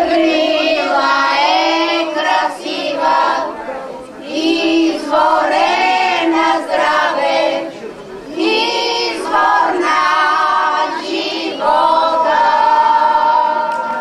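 Women's choir singing, with held notes and short breaks between phrases about four and eight seconds in.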